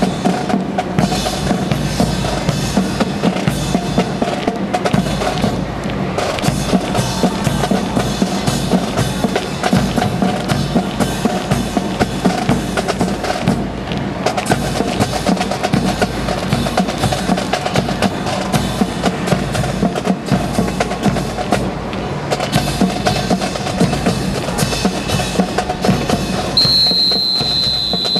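Marching music carried by drums, with a steady beat of bass drum and snare. A high steady tone sounds for about two seconds near the end.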